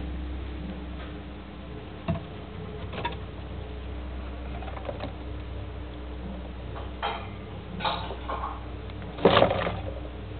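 Degus handling the camera at close range: irregular clicks, scratches and rustles of fur and paws against it, with a louder rustling burst about nine seconds in, over a steady low hum.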